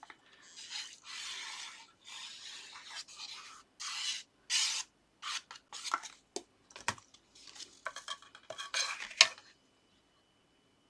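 Paper card stock being handled and rubbed down by hand on a work surface: a run of dry rubbing and sliding strokes with a few sharp taps, stopping about nine and a half seconds in.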